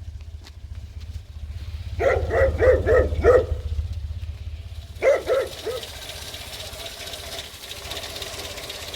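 A dog barking in two quick runs, about five barks and then three, over the steady low idle of a Renault 5's 1.1-litre four-cylinder engine.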